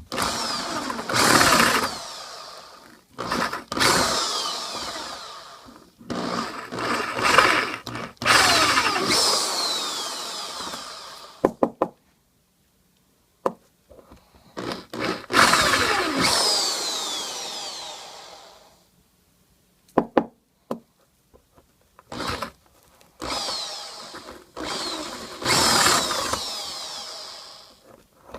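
Electric drill run in about seven short bursts of a few seconds, each winding down with a falling whine after the trigger is released, with a few clicks in the pauses. The bit is boring out the hardened glue that holds the old knot in a shaving brush handle.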